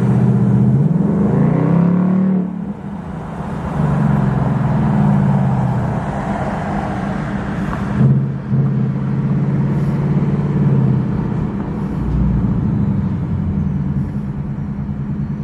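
Ford Mustang GT's V8 engine running while driving, with the air intake audible. The pitch rises about a second in as the engine revs, then eases off and holds steady.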